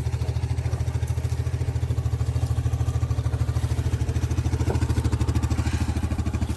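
An engine idling steadily, with an even pulsing beat.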